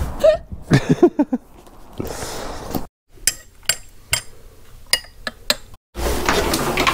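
A metal teaspoon clinking against a ceramic mug while stirring tea: a quick, irregular run of about a dozen light clinks.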